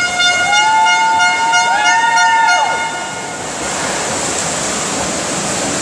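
A spectator's horn blows one long steady note for about three seconds during a swimming race, with yells rising and falling in pitch over it. Then it stops and the echoing noise of the swimming hall carries on.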